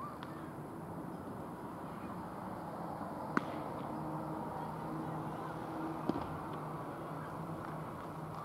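Open-air ballfield background noise during baseball play, broken by two sharp knocks, the first about three seconds in and the second about six seconds in.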